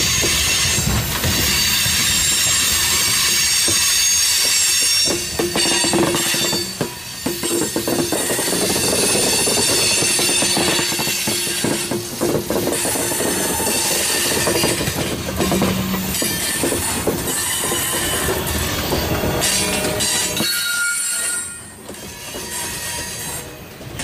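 Covered hopper cars of a freight grain train rolling past close by, steel wheels squealing in high steady tones, with clicks and clatter from the wheels on the rail. The noise drops off for a moment near the end.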